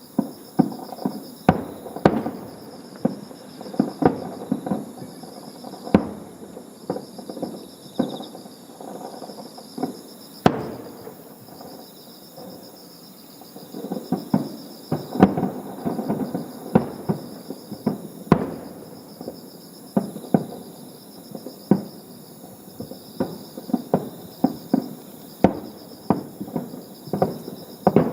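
Aerial fireworks shells bursting one after another, sharp booms each trailed by a rolling rumble, at one to three a second with a quieter lull near the middle.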